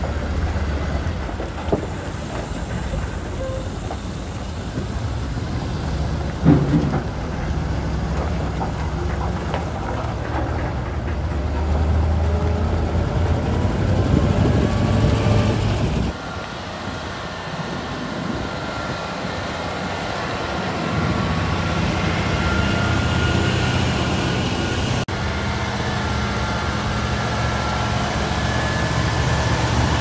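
Caterpillar D11R bulldozer's V8 diesel engine running, a heavy steady rumble, with a single loud knock about six and a half seconds in. In the second half a thin whine rides over the engine.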